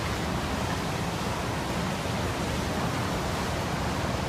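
Floodwater rushing and pouring in a steady, even hiss with no breaks.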